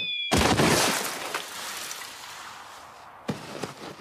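Cartoon crash sound effect, like something shattering: a loud burst of noise about a third of a second in that fades away over the next few seconds, with a short knock near the end.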